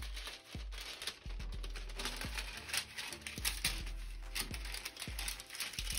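A sheet of cooking parchment paper crinkling and rustling in irregular crackles as it is handled and pressed into a frying pan.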